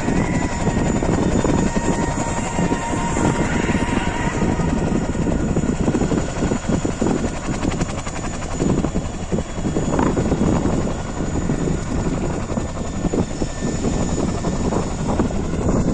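Helicopter in flight, a steady rotor and engine noise with a faint whine that fades out a few seconds in.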